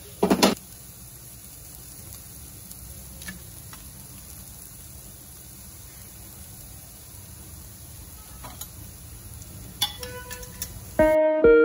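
Chopped green beans sizzling steadily in a frying pan as they stir-fry, with a knock at the start and a few light clicks, more of them near the end.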